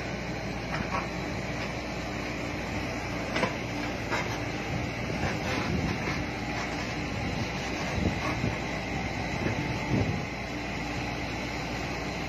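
Komatsu PC70-8 excavator's diesel engine running steadily while the boom and bucket dig, with a few short knocks through the run.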